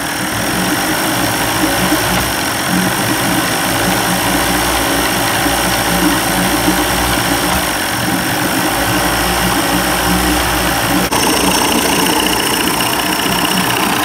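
1990s 30 hp Evinrude two-stroke outboard idling cold and missing a bit. About eleven seconds in, the sound changes abruptly to the engine running warmed up, with the lean sneeze gone.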